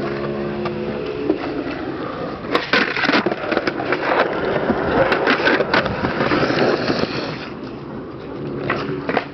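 Skateboard wheels rolling on smooth concrete: a steady rumble, with a few sharp clacks from the board about two and a half and five seconds in.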